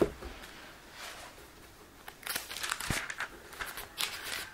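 Thin Bible pages being turned, a run of crinkly paper rustles starting about two seconds in.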